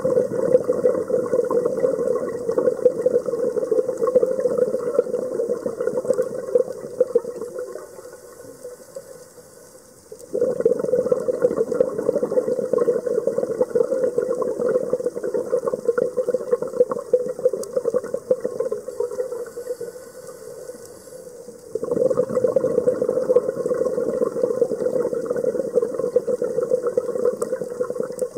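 Scuba diver's exhaled bubbles rushing from the regulator underwater, in three long bubbling bursts of several seconds each, with quieter breaks for the inhale about 8 and 19 seconds in.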